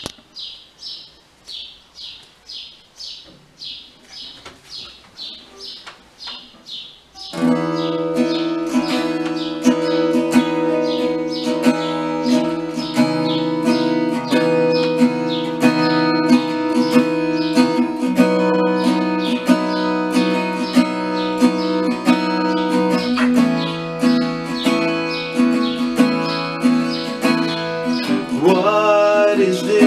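Steel-string acoustic guitar fingerpicked in a steady rolling pattern, the instrumental intro of a song. It opens with quiet, thin repeated high notes, about two a second; about seven seconds in, the full guitar comes in much louder with bass notes under the picking.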